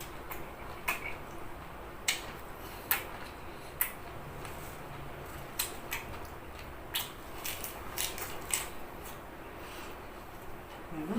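Scattered sharp clicks and taps of kitchenware and food being handled, about a dozen at irregular intervals over a low steady background.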